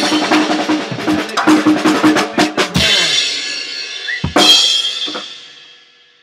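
Drum kit playing a busy groove that breaks off about three seconds in. One final crash hit comes about a second later, and the cymbals ring out and fade away.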